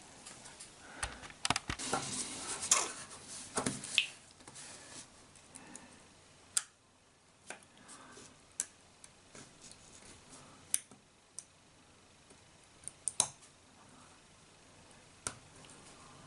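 Small sharp clicks and scrapes of a hand tool picking and prising at a SIM card's plastic layers. They come thickly over the first four seconds, then as single ticks about once a second.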